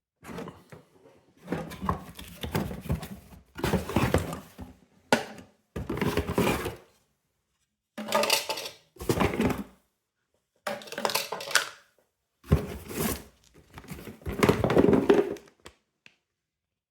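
Knocking, clicking and scraping of hard plastic parts being handled and taken apart, in about eight separate bursts with dead silence between.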